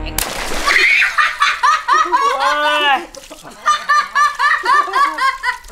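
A giant water-filled latex balloon bursts with a sudden pop about a quarter second in, and water gushes out across the tiles. Loud laughter follows and goes on in repeated bursts.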